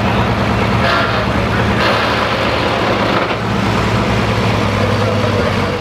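Diesel engine of a pro stock diesel pulling truck idling at rest after its pull, a steady low drone.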